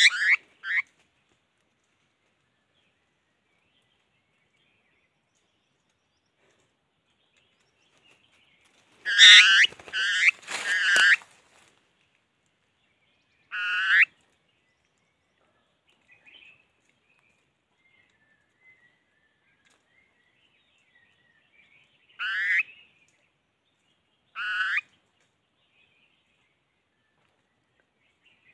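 Short, harsh, pitched animal calls: a quick run of three about nine seconds in, then single calls at about 14, 22 and 24 seconds, with stillness between.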